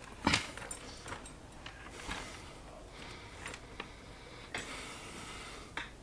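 Handling noise from a partly disassembled IBM Wheelwriter typewriter being moved on a work mat: one sharp click near the start, then lighter clicks and knocks, and a longer scraping slide about four and a half seconds in.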